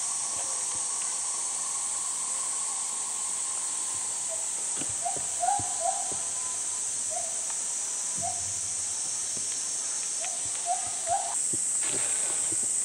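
Cicadas droning steadily in midsummer heat, with a few short rising chirps in the middle and again near the end.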